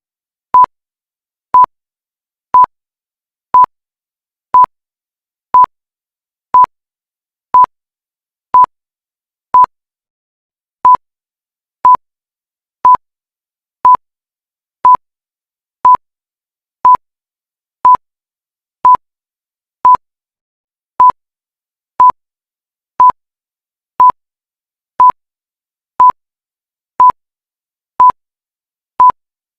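Countdown timer beeping: a short, single-pitch electronic beep once every second.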